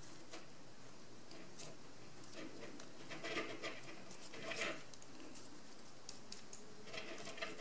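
Faint rustling and small clicks of green floral tape being stretched and pressed around a rose stem, in a few short spells.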